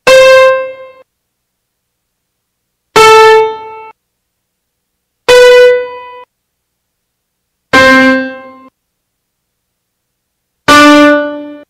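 Five short keyboard-like chime stings, one after another with silence between them. Each is a single held pitched chord that starts sharply and fades out within about a second. The last two sit lower in pitch.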